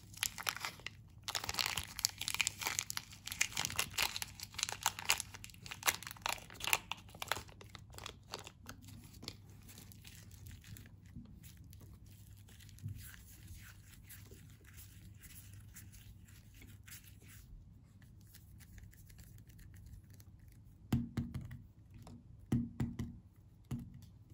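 Clear plastic wrapper crinkling and tearing as it is peeled off a block of plasticine by hand, dense and crackly for the first several seconds. Then faint squishing of the clay being kneaded, and a few soft knocks near the end as the ball is pressed and rolled on the countertop.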